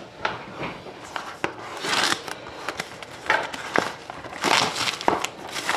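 Clear plastic shrink wrap on a sealed trading-card display box crinkling and crackling in uneven bursts as hands work it off the box, loudest about two seconds in and again near the end.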